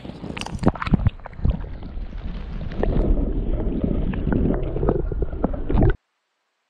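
Lake water splashing and slapping around a smallmouth bass as it is released at the waterline, then the muffled gurgling rumble of water against a camera dipped underwater. The sound cuts off suddenly near the end.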